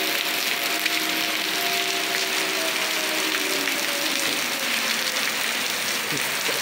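Steady hiss of heavy rain, with distant tornado warning sirens wailing underneath as a few faint held tones that slowly fall in pitch in the second half.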